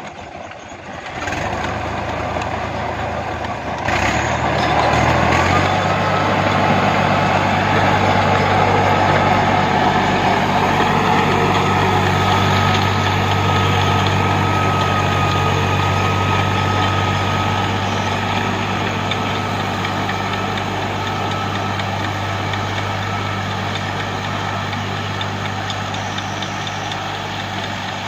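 Al Ghazi 65 HP tractor's diesel engine running. After a knock about four seconds in, it picks up to a higher, steady speed. A steady high whine runs alongside it from then on.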